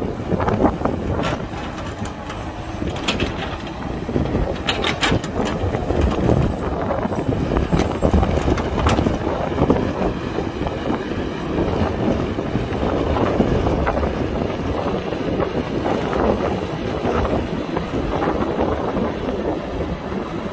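Heavy diesel earthmoving machinery (excavator and dump truck) running steadily, with wind buffeting the microphone. A few sharp knocks come in the first half.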